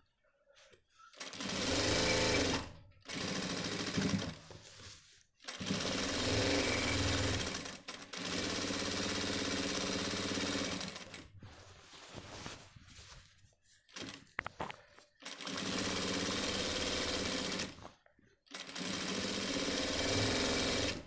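Jack industrial single-needle sewing machine stitching a folded shirt hem, running in short bursts of one to three seconds and stopping between them, about six runs in all.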